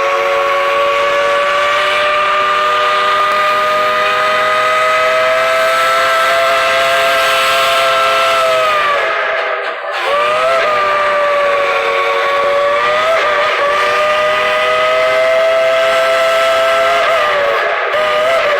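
Steam locomotive's chime whistle blowing several notes together in a long blast of about nine seconds that sags in pitch as it closes off. It is blown again at once in a second long blast that wavers briefly partway through.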